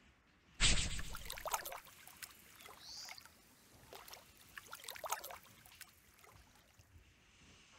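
Water splashing and slapping as a crowd of koi thrash at a pond's surface, starting suddenly just after half a second in and going on in uneven splashes. A short high chirp is heard about three seconds in.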